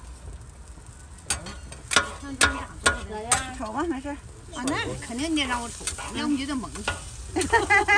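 Metal spatula blades chopping and scraping on a flat iron griddle as sausages are cut up on a grilled cold noodle sheet, giving sharp irregular clacks over a faint sizzle.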